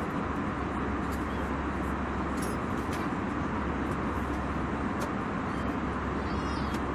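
Airliner cabin ambience: the steady, even rush of engine and air noise with a low hum underneath. A faint high-pitched voice comes in near the end.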